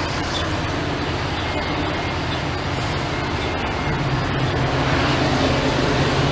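Diesel train approaching, its locomotive engine rumble growing louder from about four seconds in.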